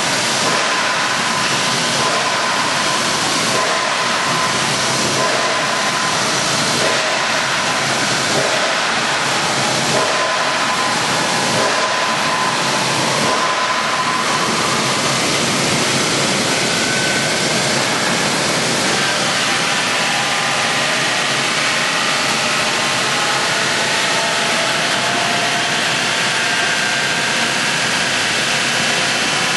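Wood chipper running: a loud, steady, dense mechanical noise with a hissing edge. Through the first half a faint pulse comes about once a second, and a faint whine sits above the noise.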